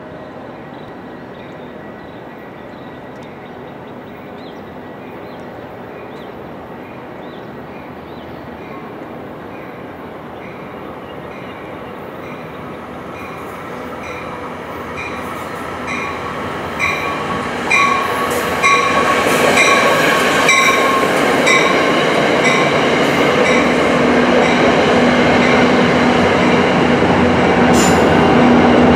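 An NJ Transit electric commuter train approaching along the tracks and running in alongside the station platform. Its rumble grows steadily louder, with a regular clicking of wheels over the rails that gets stronger as it nears.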